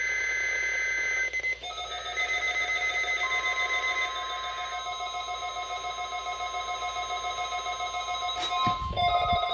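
Emergency Alert System Required Weekly Test tones. A screechy digital data burst (the SAME header) ends about a second and a half in. It gives way to a rapidly pulsing electronic alert tone, which a second steady tone joins about three seconds in. A couple of clicks and a low bump come near the end.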